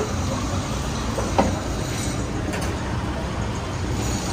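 Steady low rumble of street-side background noise, with a single sharp click about a second and a half in.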